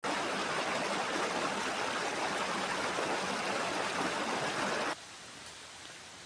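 Steady rushing of flowing stream water that cuts off abruptly about five seconds in, leaving a much fainter background.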